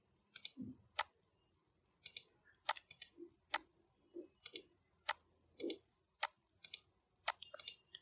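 Computer mouse clicks, a dozen or so short, sharp clicks at irregular intervals, several in quick double-clicks.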